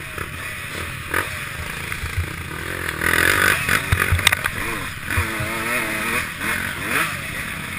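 Dirt bike engine revving hard, its pitch rising and falling again and again as it accelerates and shifts, with a few sharp knocks.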